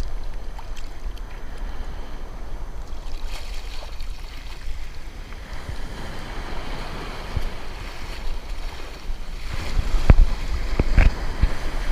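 Ocean surf washing and breaking, with wind buffeting the microphone. Louder low rumbles and thumps come in over the last couple of seconds.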